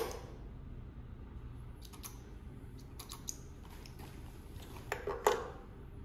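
Handling noise at an industrial sewing machine: scattered light clicks, then a quick cluster of sharper clacks about five seconds in, as hands move parts, thread and a piece of leather around the machine.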